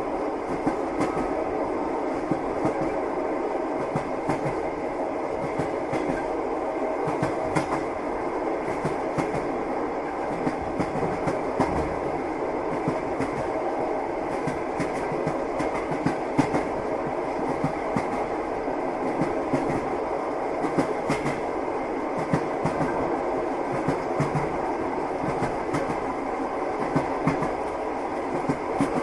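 Train wheels clattering over the rail joints over a steady running rumble, heard from aboard a moving train.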